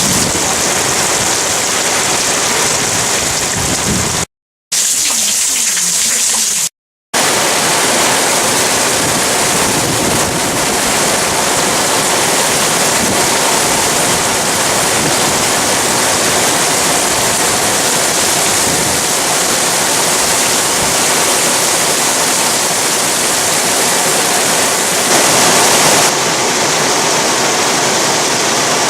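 Heavy tropical-storm rain pouring down in a dense, steady rush of falling and running water. The sound cuts out completely twice, briefly, about four and seven seconds in.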